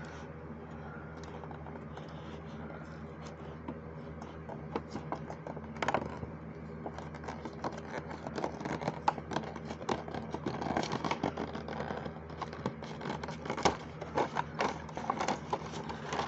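Hands opening a toy-car multipack, with the packaging scraping, scratching and clicking. The noises are sparse at first and come thick and fast from about five seconds in, over a steady low hum.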